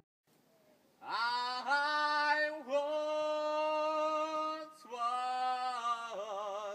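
An unaccompanied voice singing long held notes, sliding up into each one, with a short break partway through and a wavering note near the end.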